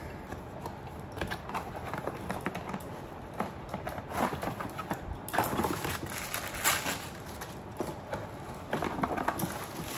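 Rustling, crinkling and irregular light knocks as a storage box and its packaging are handled and unpacked.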